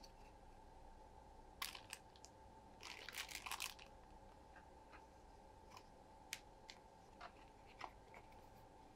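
Plastic model-kit sprues and their clear plastic bag being handled: a sharp click a little over a second in, a short crinkle of the bag about three seconds in, then a few scattered light clicks and taps.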